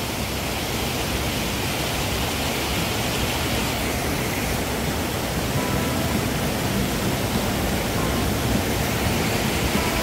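Steady rush of a small mountain-stream waterfall pouring over boulders into a deep rock pool, an even noise that does not change.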